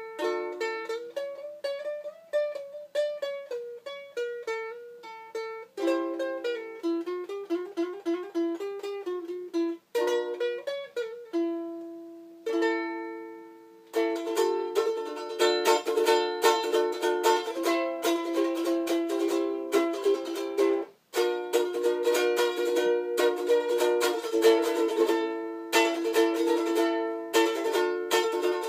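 3D-printed ukulele being played: a picked melody of single notes for the first dozen seconds, then steady strummed chords from about fourteen seconds in, with a brief break a little past twenty seconds.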